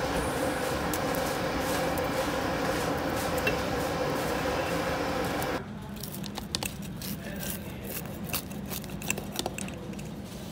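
Steady hum of a working pizza oven and its kitchen fans. About five and a half seconds in it gives way to a quieter room with scattered light clicks and knocks of plates and cutlery on a table.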